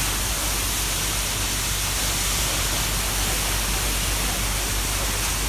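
Steady roar of a large waterfall plunging onto rocks and water at close range.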